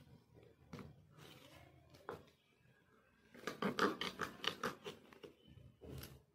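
Knife cutting moringa drumstick pods on a wooden chopping board: a few scattered clicks, then a quick run of cuts and taps about halfway through.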